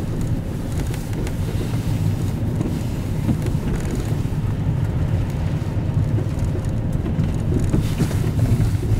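Steady low rumble of a small van's engine and road noise, heard from inside the cab while driving.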